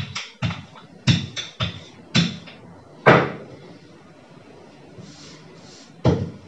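A wooden rolling pin knocking and rolling on a kitchen countertop as dough is rolled out: a string of irregular knocks, the loudest about three seconds in, then a quieter stretch and another knock near the end.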